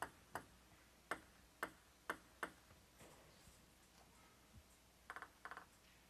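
Table tennis ball bounced on the table by a player before serving: six sharp single clicks, unevenly spaced, over the first two and a half seconds, then two short rattles of quick ticks a little after five seconds in.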